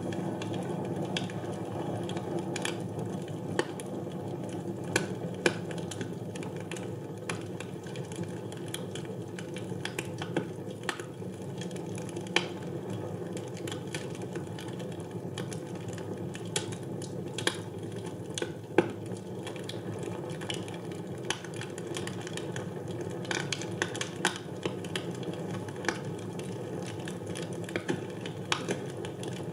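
Wood fire burning in a fireplace: a steady low rush of flame with irregular crackles and pops, one louder pop about two-thirds of the way through.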